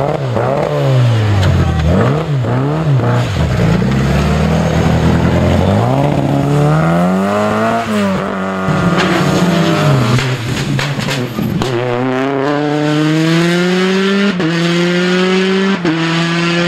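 Classic Mini rally car's four-cylinder engine revving hard through a tight chicane, its pitch swinging up and down with throttle and gear changes. Then a rally car accelerating hard, its engine note climbing steadily through the gears, with two upshifts near the end.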